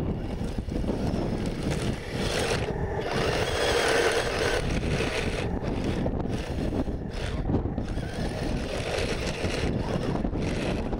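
Heavy wind noise buffeting the microphone, mixed with the electric drive of a 1:16 scale RC tank running as it grinds through deep mud; the motor and track noise swells between about two and five seconds in.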